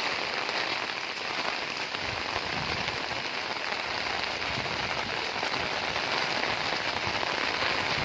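Very heavy rain pouring steadily, a dense, even hiss of drops. A low rumble fills in underneath from about two seconds in.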